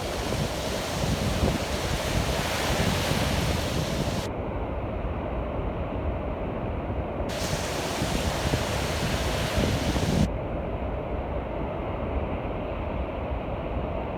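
Storm surf of the Black Sea breaking and washing on the beach, with wind rumbling on the microphone.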